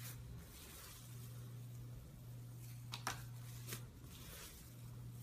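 Thick green slime being squeezed and kneaded by hand, giving faint crackling and squishing, with a sharper crackle about three seconds in, over a steady low hum.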